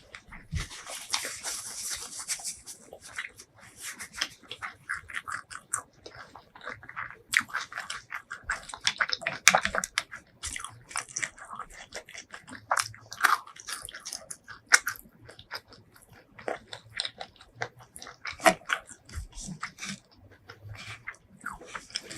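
Close-miked biting and chewing of crispy fried food, with irregular crunches and wet chewing clicks throughout and a burst of crackly crunching about a second in.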